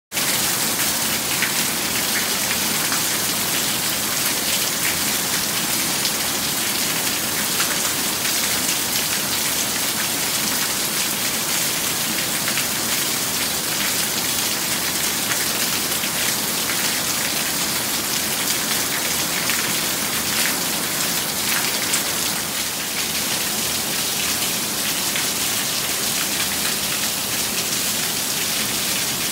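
Torrential rain falling steadily: a dense, even hiss with scattered sharper drop splashes.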